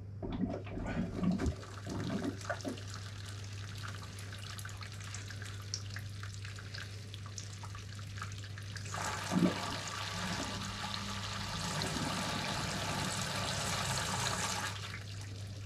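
A few knocks and clicks of equipment being handled, then about nine seconds in a brewing system's pump starts and wort flows steadily through the recirculation line over the mash, at the start of mash recirculation. A constant low hum runs underneath.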